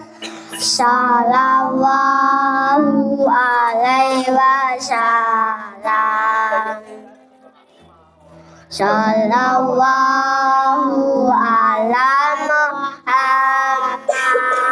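A child singing sholawat, an Islamic devotional song, in long held and bending notes, with a pause of about two seconds in the middle.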